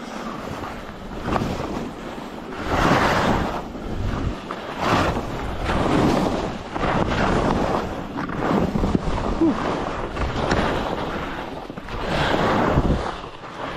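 Skis carving and skidding through chopped-up snow, a rushing swish that swells with each turn about every one and a half to two seconds, with wind buffeting the microphone.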